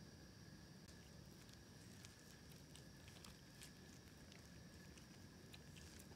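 Near silence: faint scattered clicks of a kitten eating, over a steady background hum.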